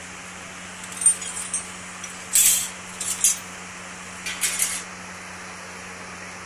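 Metal hand tools and engine parts clinking against each other in several short bursts, on a diesel engine block stripped down with its cylinder head off.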